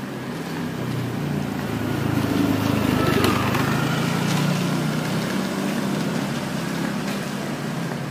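Small motor scooter passing close by and pulling away, its engine growing louder to a peak about three seconds in, then fading.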